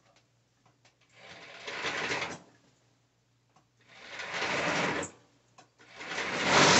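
Juki MO-series overlock machine (serger) stitching fabric in three short runs, each growing louder as it goes, the last one stopping abruptly.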